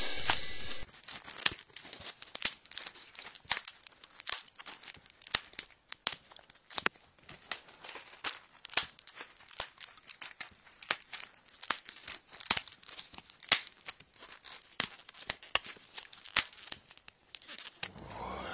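The last of the music dies away in the first second. Then comes a dense, irregular crackling and clicking, with a brief low rumble near the end before it cuts off.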